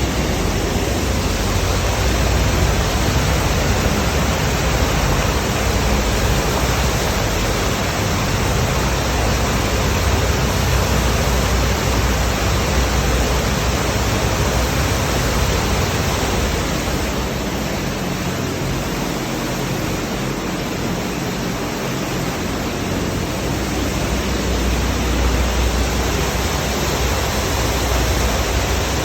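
Sewage falling as a waterfall inside a deep sewer manhole, a loud steady rush of water. The manhole's internal drop pipe is blocked, so the flow drops freely from the upstream inlet instead of running down the pipe.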